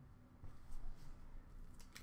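Faint rustling and a few light ticks of trading cards being handled and set down, starting about half a second in.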